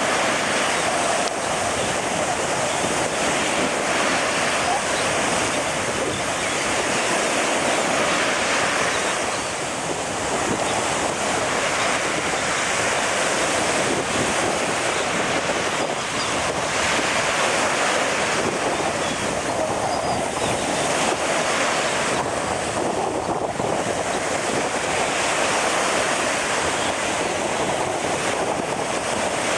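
Ocean surf washing steadily, swelling and easing every few seconds, with wind noise on the microphone.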